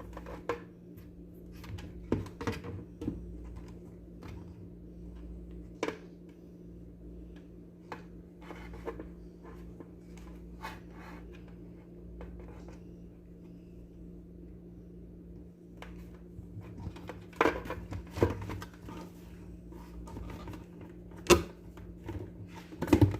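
Light clicks and knocks of hard plastic blender parts being handled and fitted together as the cover goes on, with a few sharper knocks about three-quarters of the way through, over a steady low hum.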